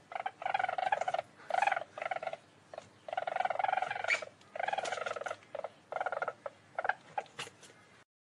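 A small mustelid giving rapid chattering trills in a string of short bursts, each a fraction of a second to about a second long, with brief pauses between and growing fainter near the end.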